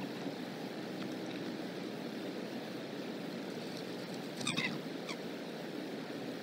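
Steady outdoor background rumble at a bald eagle nest. A short, high bird chirp comes about four and a half seconds in, with fainter chirps around it.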